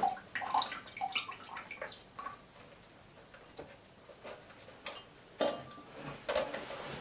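Small plastic clicks and taps from handling the portable air cooler's water bottle and cap, then two louder knocks near the end.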